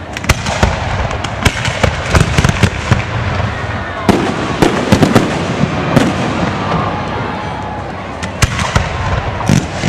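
Aerial fireworks going off in rapid succession, many sharp bangs and crackles. There is a dense run of reports at first, a lull around the middle, and another cluster near the end.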